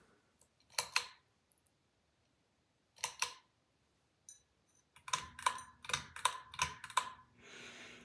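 Ceiling fan pull-chain switch clicked by hand, the metal chain jingling: a few separate clicks, then a quick run of about six clicks about five seconds in. A low steady motor hum comes in at the same time, as the fan starts to turn.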